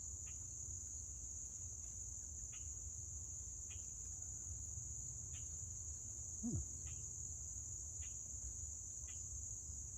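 Steady high-pitched insect chorus, with faint short chirps about once a second. There is a low rumble underneath and one brief low falling sound about six and a half seconds in.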